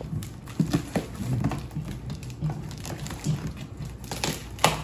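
Box cutter slicing through packing tape and cardboard on a shipping box: irregular scrapes, taps and rustles, with one sharper click near the end.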